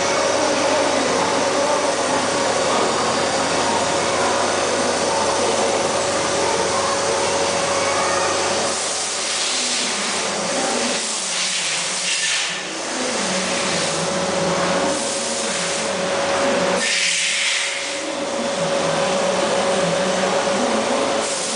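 Gun drilling machine running: a steady machine drone with a held tone. Hissy high-pitched surges come and go between about halfway in and three quarters in, with two short dips in level.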